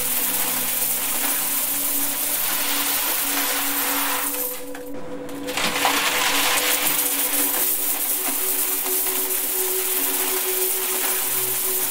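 A stream of coins pouring onto a pile of coins in a metal box, a dense continuous clatter that thins briefly about five seconds in and comes back strongly. Steady held drone tones sound underneath, a higher tone joining about seven seconds in.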